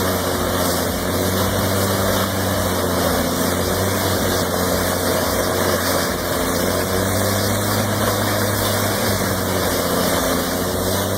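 Caterpillar C18 diesel engine of a large drum wood shredder running steadily, a constant low hum that does not change in pitch, with mechanical noise from the machine.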